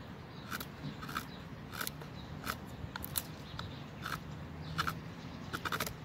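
Short scraping strokes of a multitool's knife blade shaving a wooden stick: about a dozen quick cuts at uneven intervals, with a few close together near the end.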